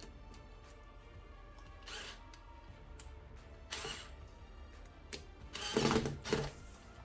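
Cordless electric screwdriver driving screws into a fuse block's terminals: two short bursts, then a longer, louder run about five seconds in.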